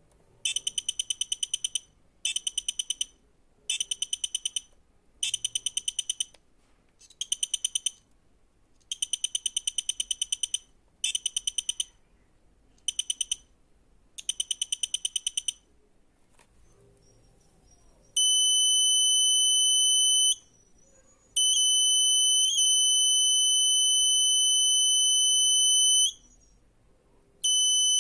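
Buzzer of a simple homemade fire-alarm circuit sounding. For about the first fifteen seconds it gives short bursts of rapid, high-pitched beeping with brief gaps between them. It then switches to a steady high-pitched tone, held for several seconds at a time and cut off twice.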